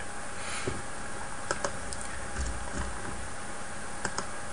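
A few sharp clicks from a computer being operated at the desk, over a steady low hiss; a quick pair of clicks comes about four seconds in.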